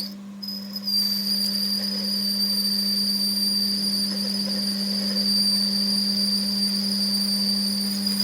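A workshop machine running with a steady high-pitched metallic squeal over a low steady hum. The squeal drops out for under a second just after the start, then comes back and holds.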